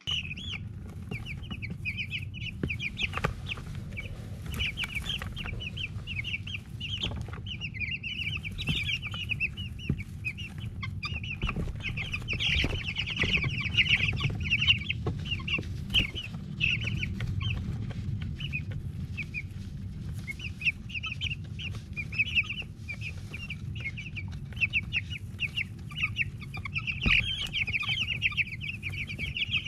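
A brood of week-old Cornish cross broiler chicks peeping continuously, many short high peeps overlapping, over a steady low rumble with a few knocks.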